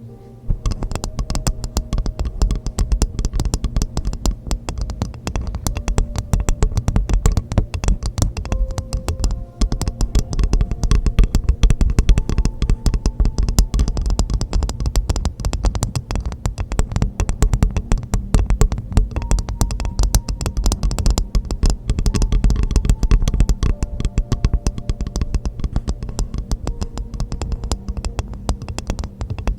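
Rapid, continuous tapping on a hollow coconut shell: a stream of quick knocks, many with a short hollow ringing tone.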